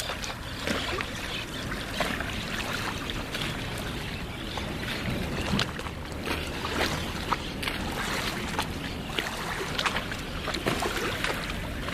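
Small waves lapping at the edge of a lagoon, with irregular little splashes and slaps of water.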